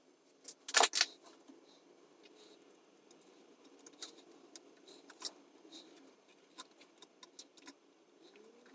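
Small hand tools clicking and clinking against an amplifier chassis during resistor replacement, with two louder snaps about a second in and scattered light ticks after.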